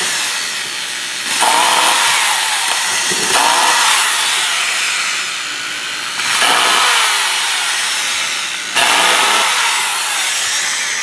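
Makita 3/4-inch hammer drill's electric motor running in free air, its trigger squeezed again and again so that it surges back up to speed four times and eases off between. The commutator is sparking heavily at the brushes, the sign of a dirty or worn commutator.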